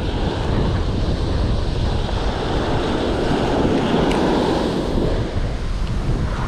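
Ocean surf breaking and washing up the sand, with wind buffeting the microphone; the wash swells louder for a couple of seconds around the middle.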